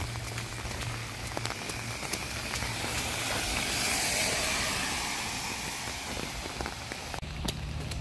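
Heavy rain falling on a wet street, with close drops ticking sharply. The hiss swells and fades around the middle. Near the end a low, steady engine hum comes in.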